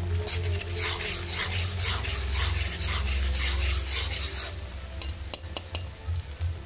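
Metal spatula scraping round an iron kadai in quick strokes, about three a second, stirring minced garlic and ginger frying in oil. The scraping stops about two-thirds of the way through, leaving the oil sizzling with a few light clicks.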